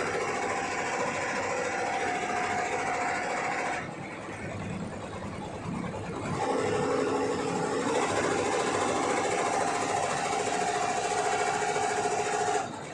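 Embroidery machine running with a steady mechanical whir and hum. The sound drops back for about two seconds about four seconds in, then picks up again, and falls off near the end.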